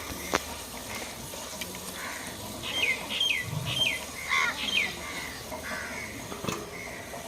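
A bird calling: a run of about five quick, falling squawk-like notes starting a little under three seconds in. Under it is a faint steady hiss of onion paste frying in a clay pot, with a sharp knock early on and another near the end.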